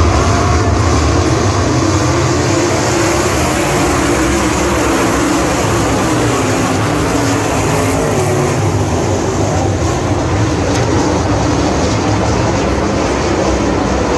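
A pack of winged sprint cars racing on a dirt oval, their V8 engines running loud and steady at high revs, with the pitch wavering up and down as they go through the turns.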